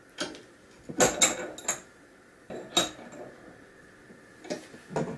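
Thin metal wire rod clinking and knocking against a steel bench vise as it is bent and handled by hand: a series of sharp, irregular metallic clinks, the loudest cluster about a second in, another just before three seconds, and two more near the end.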